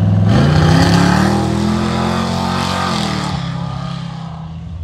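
A car engine revs up from idle, holds high revs for about two seconds with a hiss over it, then drops back to idle.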